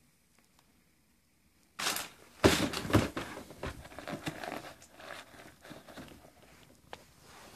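Tissue paper rustling and crinkling as a sneaker is handled in its shoebox: a run of uneven, crackly rustles that starts about two seconds in.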